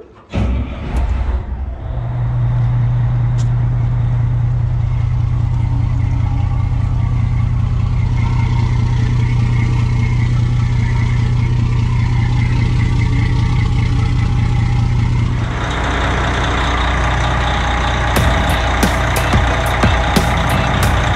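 Detroit Diesel Series 60 inline-six marine diesel starting, catching within a couple of seconds and settling into a steady idle, its freshly replaced raw water pump now pushing cooling water out the hull outlet. About fifteen seconds in the engine sounds fuller and louder, as heard close up in the engine room.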